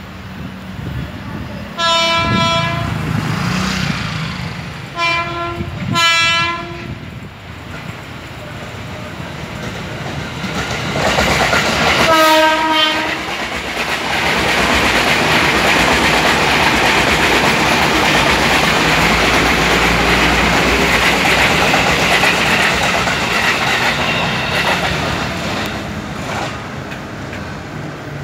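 Electric commuter train sounding its horn four times as it approaches, one blast, then two short ones, then a longer one, followed by the rumble and clatter of the train passing, loudest in the middle and fading near the end.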